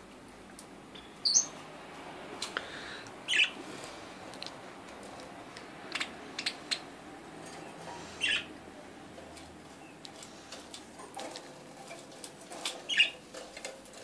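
Budgerigars giving short, sharp chirps, four loud ones spread out with pauses between, with light clicks and taps in between.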